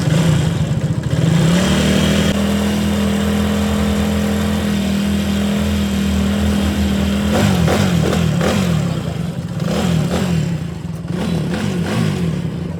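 Vehicle engine running, revved up about a second in and held steady for several seconds, then blipped up and down repeatedly.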